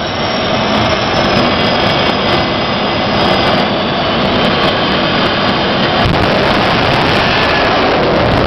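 Jet dragster's turbojet engine running loud and steady at high power, with a faint whine over the roar. About six seconds in the noise broadens as the car launches down the strip with its afterburner lit.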